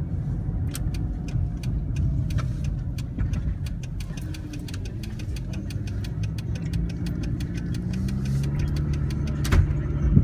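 Engine and road noise inside a moving car: a steady low rumble, with a run of light clicks over it and a thump near the end.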